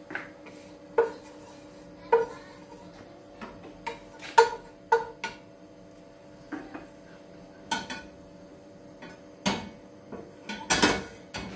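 Wooden spoon stirring and knocking against the inside of a stainless steel pot with a little oil heating in it: irregular sharp taps, each with a brief metallic ring, coming closer together near the end.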